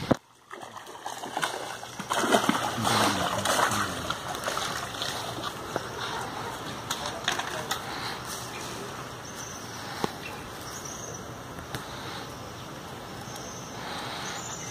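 Water splashing and sloshing as a hooked fish thrashes at the surface, loudest for about two seconds starting roughly two seconds in, then settling into a steadier wash with scattered clicks.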